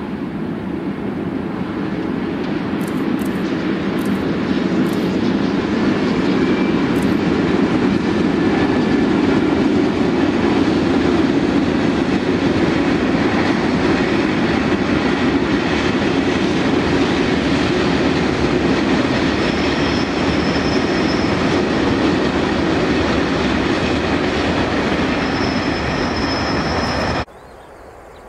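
Freight train of container wagons behind an electric locomotive rolling past: a steady rumble of wheels on rail that builds over the first ten seconds, with a few faint clicks early and a thin faint wheel squeal later. The sound cuts off abruptly near the end.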